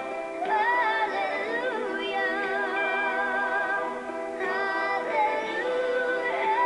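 Young girl singing a slow ballad, holding long notes with wide vibrato over steady instrumental accompaniment; a new phrase begins about four and a half seconds in.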